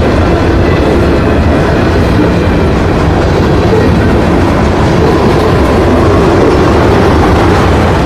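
Union Pacific freight train rolling past at close range: a loud, steady rumble of wheels on rail as the cars go by.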